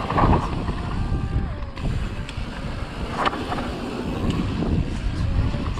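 Mountain bike rolling fast down a rough, dusty dirt trail: tyres on loose dirt and the bike rattling over bumps, with heavy wind on the helmet-camera microphone. Sharp clattering hits just after the start and again about three seconds in.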